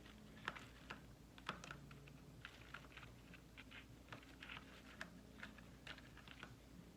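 Faint, irregular light clicks and taps of small parts and hand tools being handled while working on a wiring harness, over a low steady hum.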